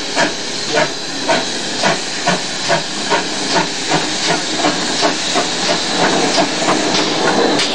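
GWR 5700 class inside-cylinder 0-6-0 pannier tank No. 3738 working steam at low speed: sharp exhaust beats, about two to three a second and quickening, over a steady hiss of steam. Near the end the beats give way to a broader rolling noise as the engine passes close by.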